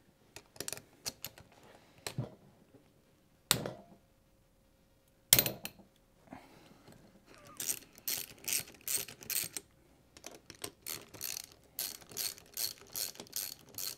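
Socket ratchet working the cylinder-head bolts off a Braaap ST250 engine: a few scattered clicks and two sharp loud clicks, then from about halfway a quick run of ratchet clicking in short strokes, several a second.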